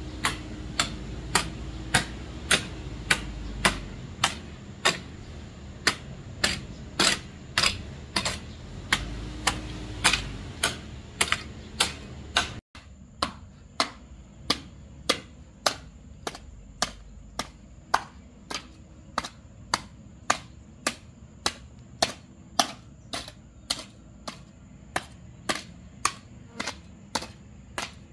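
Sharp knocks repeating steadily, about two a second, with a brief dropout about halfway through.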